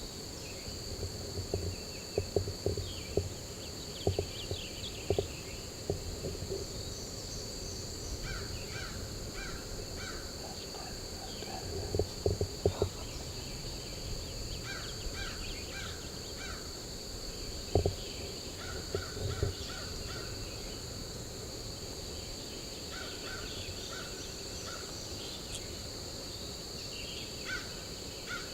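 Spring woodland ambience: a steady high-pitched insect drone, bird calls in short series of four or five notes, and a few clusters of dull thumps.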